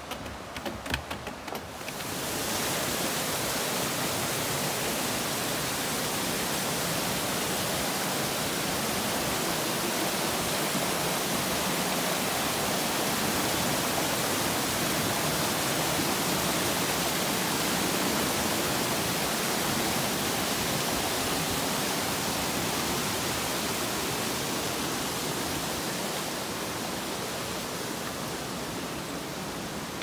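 Steady rush of a mountain waterfall, coming in about two seconds in after a few light clicks and easing slightly near the end.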